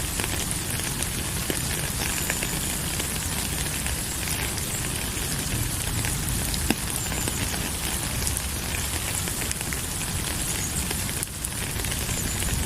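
Steady rain falling: an even hiss scattered with small drop ticks over a low rumble, briefly dipping about eleven seconds in.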